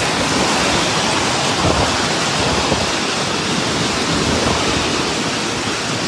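Heavy downpour of rain and hail beating on the street and pavement, a loud steady rush.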